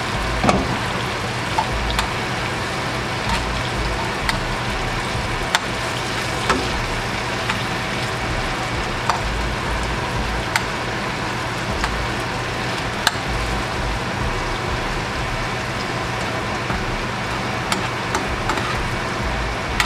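Shrimp frying in a skillet of melted butter and garlic: a steady sizzle with scattered sharp pops and clicks.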